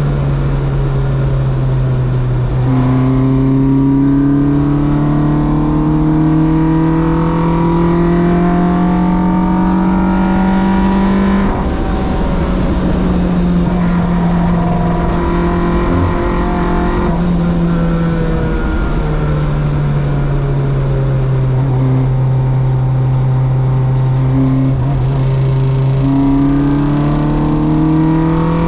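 Track-day car's engine pulling hard with its pitch rising slowly, dropping sharply at a gear change a little over a third of the way in, then easing and climbing again near the end.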